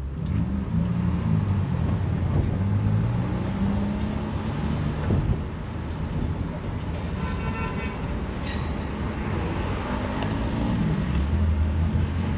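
Traffic and vehicles running in a car park, with a short car horn toot about seven seconds in.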